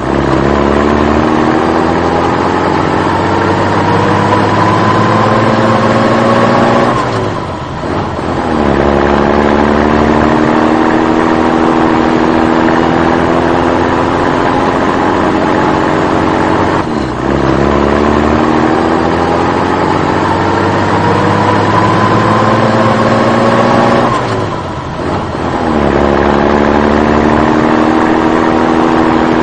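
A recorded engine-revving sound, looped. The engine note drops, then climbs slowly for about seven seconds, and this repeats identically three times with a short dip between cycles.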